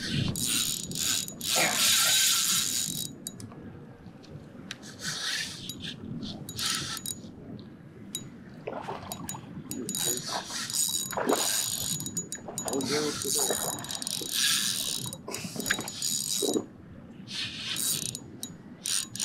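Spinning reel's drag clicking in repeated bursts as a hooked redfish pulls line off against the bent rod.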